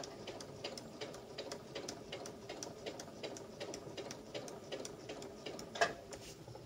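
Domestic electric sewing machine stitching slowly through layered ribbon: the needle ticks about three times a second over a steady motor hum, with one louder clack near the end.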